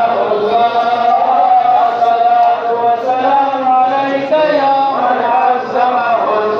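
A man's voice chanting an Islamic recitation in long, held notes that step up and down in pitch.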